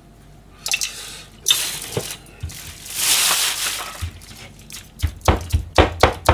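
Scattered handling noises and a short hiss, then from about five seconds in a Chinese cleaver chopping rapidly on a plastic cutting board, about four strikes a second, mincing chicken breast and carrot.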